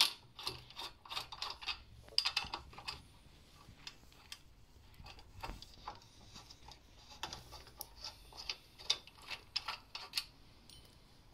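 Light, irregular metallic clicks and ticks in small clusters: a 5 mm hex key working in the caliper bolts of an e-bike's rear disc brake, being turned and repositioned as the bolts are loosened.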